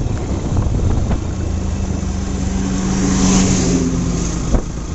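Yamaha motorcycle engine running with wind and road noise while riding at about 50 km/h. A car passes close alongside about three seconds in, swelling the hiss and engine hum briefly.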